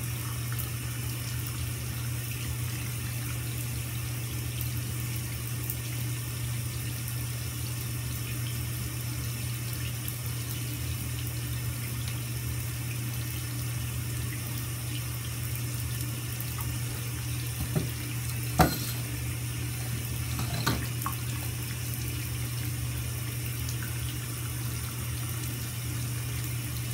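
Steady low hum with a faint hiss throughout. A few short, light clicks fall past the middle, which fit the metal slinky shifting and tipping against the bathtub.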